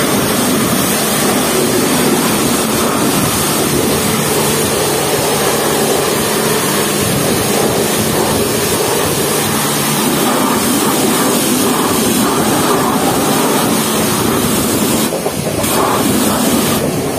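High-pressure washer wand blasting a jet of water against a car's body and wheels: a loud, steady spray that eases off briefly near the end.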